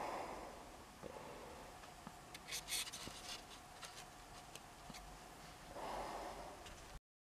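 Faint handling noises: a cluster of light clicks and scrapes as a lure body is set down on a drying rack, with a soft breath-like rush at the start and again near the end. The sound cuts off abruptly just before the end.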